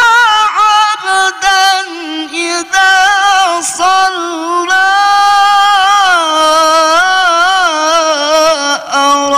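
A male Qur'an reciter chanting in melodic tilawah style, high in his register, with long held notes that waver and turn in ornamented melismas, broken by a few short pauses.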